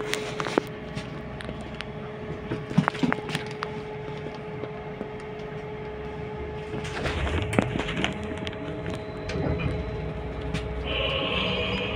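Inside a trolleybus: a steady electrical hum with scattered sharp clicks and rattles of the cabin, then from about seven seconds in a low rumble and rattling as the trolleybus moves.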